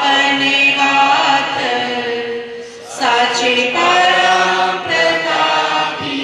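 Voices singing a prayer hymn together, with long held notes and a short break for breath about three seconds in.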